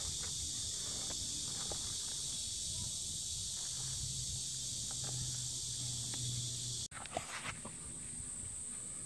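Steady, high-pitched chorus of insects in the grass, with a few faint crunches of a cat chewing dry kibble. About seven seconds in, the insect sound changes abruptly.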